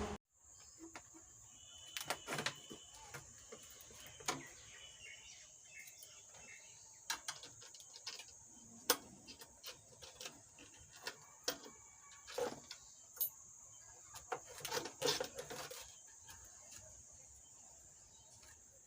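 Scattered light clicks and knocks of tools and metal parts as the channel B circuit board is unscrewed and taken out of a power amplifier, in irregular bunches.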